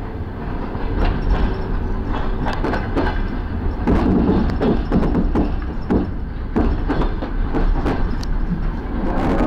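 Passenger train pulling out of a station, heard from inside the carriage: a steady low rumble of the running gear with irregular clacks and knocks as the wheels run over the track and points.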